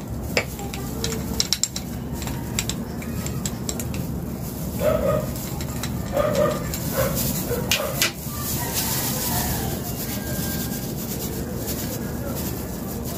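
A dog barks a few times in the background, short barks clustered about five to eight seconds in, over a steady hum. Sharp light clicks come from a metal tool knocking against a glass bottle.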